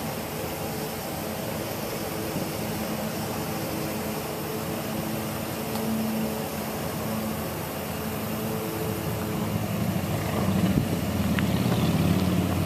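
A vehicle engine running steadily, with wind on the microphone, getting louder in the last few seconds.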